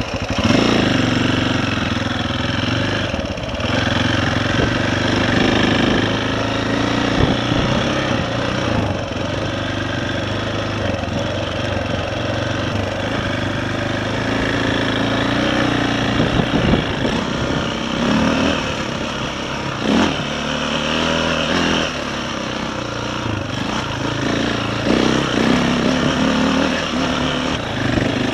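KTM 525 single-cylinder four-stroke dirt bike engine running under way on a rough track, its engine speed rising and falling with the throttle.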